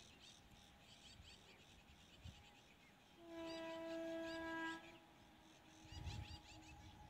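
A single steady horn blast lasting about a second and a half, near the middle, from the WAP7 electric locomotive approaching in the distance. Faint bird chirps sound throughout.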